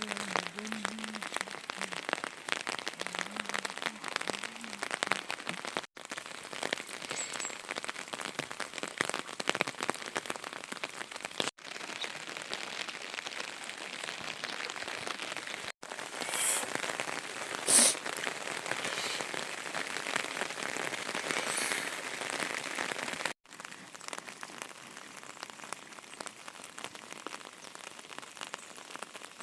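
Rain falling steadily, a dense patter of drops that breaks off for an instant four times and is quieter for the last few seconds. A sharp knock about 18 seconds in is the loudest sound.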